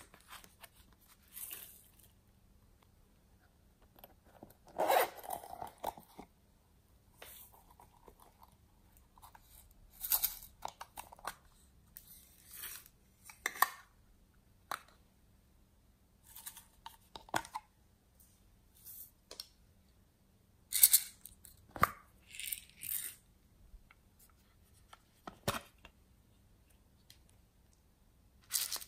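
Small plastic toy cases being handled and clicked open and shut, with glitter and sequins rustling and spilling out, as a series of scattered short clicks and rustles with pauses between.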